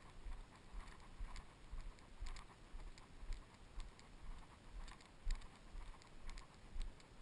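Footsteps of someone walking along a dirt trail, a steady step about twice a second, each a low thud with a light scuff.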